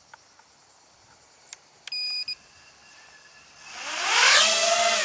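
A short electronic beep about two seconds in, then the Realacc X210 FPV quad's brushless motors and propellers spin up into a rising whine that peaks and eases back down near the end.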